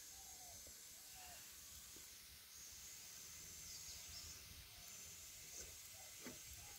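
Near silence: a faint steady high hiss with a few soft, short bird chirps scattered through it.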